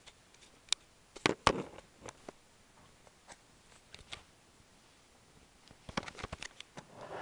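Handling noise: scattered clicks and knocks, with two sharp knocks about a second and a half in and a quick run of clicks near the end, then a short rustle.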